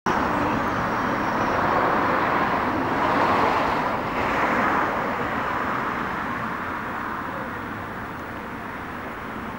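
Rushing noise of outdoor road traffic, loudest in the first half and slowly fading after about five seconds.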